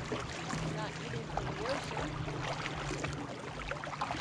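Kayak paddling: water sloshing and gurgling around the paddle blades and hull with small splashes and drips, over a steady low hum.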